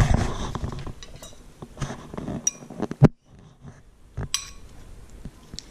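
Metal fork clinking against a glass bowl: a few separate clinks that leave the glass ringing briefly, with one heavier knock about three seconds in.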